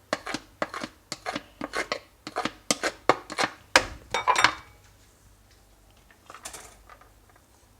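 Metal cooking pot and kitchen utensils clinking and clattering in a quick run of sharp clicks while peels are put into the pot, ending with a ringing clank about four seconds in; after that only a few faint clicks.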